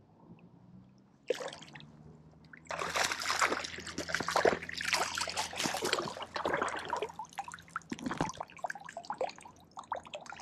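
A hooked trout splashing and thrashing at the water's surface as it is scooped into a landing net: one short splash about a second in, then a run of heavy splashing from about three seconds in that eases off over the last few seconds.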